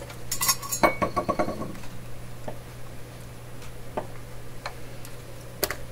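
Metal clicks and knocks from a vintage radio's steel chassis being handled and tipped up on a workbench: a quick cluster of rattling knocks about a second in, then single sharp clicks every second or so.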